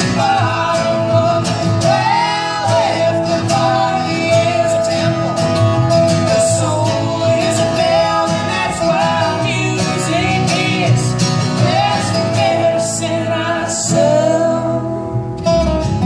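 Acoustic folk band playing live: plucked guitar with singing over it, and a long held note running through most of the passage before the music thins out near the end.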